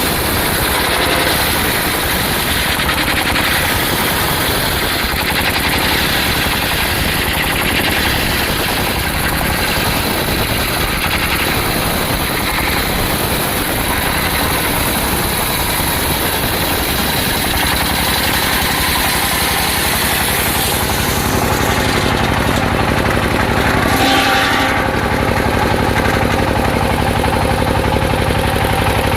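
Engine-driven circular sawmill running loudly as the blade cuts teak. About two-thirds of the way through the sound turns to a steadier hum, with a brief drop a few seconds later.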